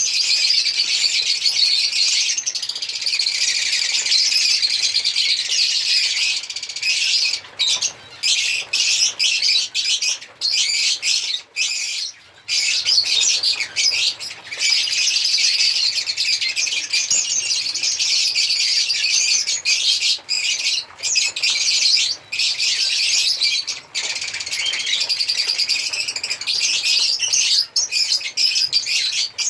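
Lovebirds chirping in a dense, rapid, high-pitched chatter, broken by a few very short pauses partway through.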